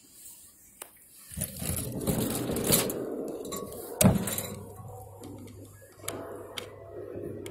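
Close handling noise of a handheld CNC controller and the phone filming it: rubbing and rustling, with a single sharp knock about four seconds in, followed by a faint steady low hum.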